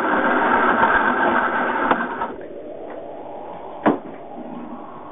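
Electric model train running on shelf track, a steady mechanical whirring and rattling that cuts off about two seconds in, followed by a single sharp knock.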